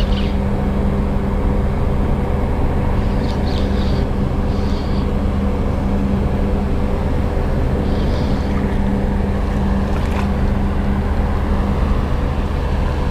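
A boat engine running steadily, a low even hum that does not change pitch, with a few brief higher-pitched sounds over it.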